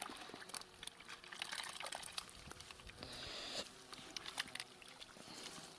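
Faint splashing and dripping of water with many small scattered clicks, and a short rush of water about three seconds in.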